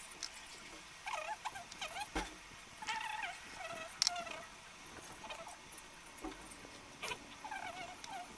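Short, high animal squeaks repeated in quick clusters, each sliding up and down in pitch. A few sharp clicks come about two, four and seven seconds in.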